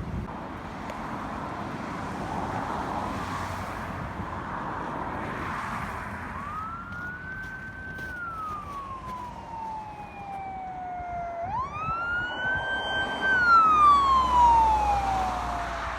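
Emergency vehicle siren in a slow wail: about six seconds in it rises, holds high and slides slowly down, then rises again and falls, loudest near the end. Traffic noise underneath.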